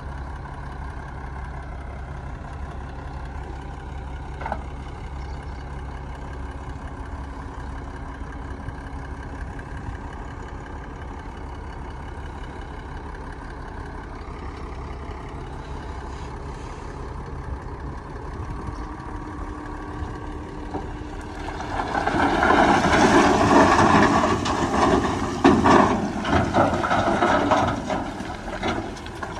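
Heavy diesel earthmoving machinery running steadily at low revs. About 22 seconds in, a loud, rattling rush of dirt and stones starts and goes on to the end, with irregular crunching peaks.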